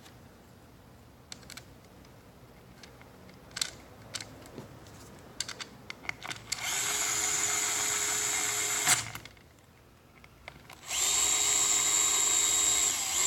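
Handheld gyro-sensing electric screwdriver running in two spells of a steady whine, each about two seconds long, turning screws, with a few light clicks of handling before them.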